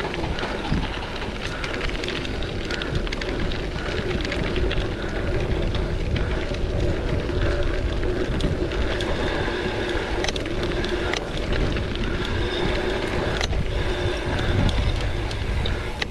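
Gravel bike ridden over a rough dirt trail: tyres running on the ground and the bike rattling and clicking over bumps, over a steady low rumble.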